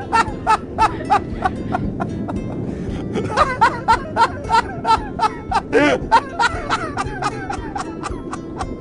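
Hearty laughter in rapid, evenly spaced "ha-ha" bursts, about four a second, from a man with other people chuckling along, over background music.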